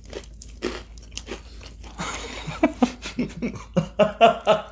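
Close-miked eating: bites and crunchy chewing of fast food, coming quicker and louder in the second half.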